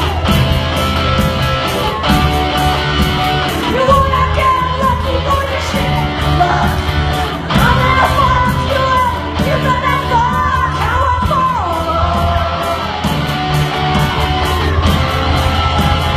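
Live punk-funk rock band playing, with drums, bass guitar, electric guitar and keyboards. A woman sings lead from about four seconds in until about twelve.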